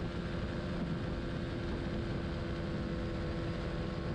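Honda CBR125R's single-cylinder four-stroke engine running at a steady pitch at racing speed, recorded by an onboard camera on the bike, with heavy wind rush over the microphone.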